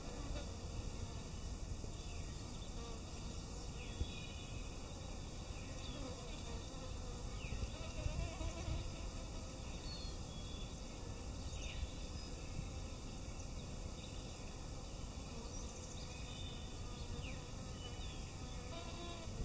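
Flying insects buzzing, a faint wavering hum over a low rumble.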